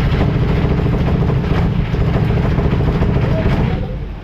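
A fairground ride running: a loud, steady mechanical rumble with a low hum, easing off near the end.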